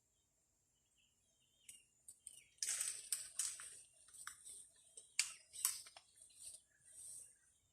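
Leaves and twigs rustling and crunching in irregular bursts, starting about two seconds in, over a steady high-pitched insect drone.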